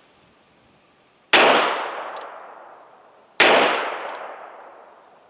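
Two shots from a North American Arms Companion .22 cap-and-ball black-powder mini revolver, about two seconds apart. Each is a sharp crack that fades away over a couple of seconds, with a faint echo coming back shortly after.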